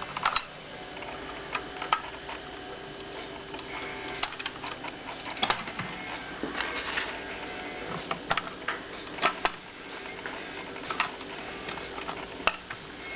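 Irregular clicks, ticks and metallic taps from a 1930s Marx tinplate clockwork police motorcycle toy being handled and worked, over a faint steady hum.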